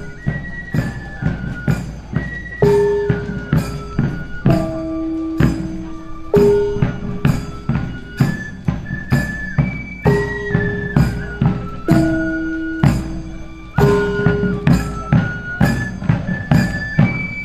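Javanese palace-guard marching band: a flute plays a repeating melody of held notes over a steady marching beat of barrel drums, with small hand-held gongs struck in time.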